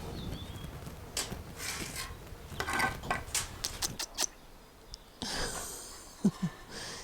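Shovel scraping and knocking through concrete mix turned by hand: a run of sharp scrapes and clicks, then a longer scrape about five seconds in.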